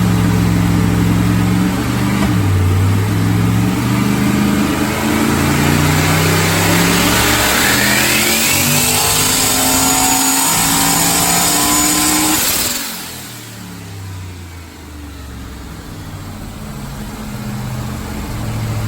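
Turbocharged LS V8 in a Holden Commodore doing a full-throttle pull on a chassis dyno on 12 psi boost. The engine note climbs steadily in pitch for about ten seconds, with a rising high whistle from the turbo. Near the two-thirds mark the driver lifts off, and the engine drops suddenly to a quieter, lower running sound as the rollers wind down.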